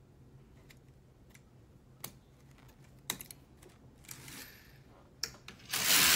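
Light plastic clicks as needles and stitches are shifted with a transfer tool on the needle bed of a Silver Reed LK150 knitting machine, increasing a stitch at the edge. Near the end the carriage is pushed across the bed, a loud sliding rattle that knits a row.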